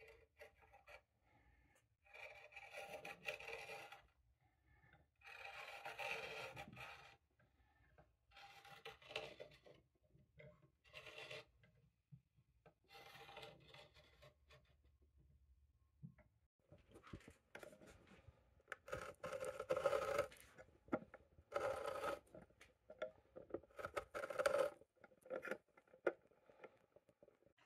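A threaded rod being turned through a hole in a hardwood clamp jaw, threads grinding against wood in a run of short scraping, creaking bursts of one to two seconds each, coming closer together and louder in the second half.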